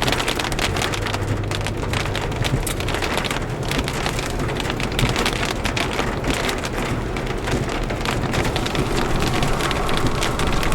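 Steady rain: a dense crackle of many drops, with a steady low hum underneath.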